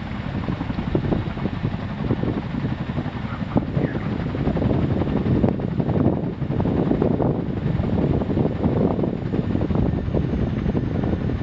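Boeing CH-47F Chinook tandem-rotor helicopter hovering low and settling onto the ground: a fast, dense beat from its two rotors over the running of its twin turboshaft engines, growing louder about four seconds in.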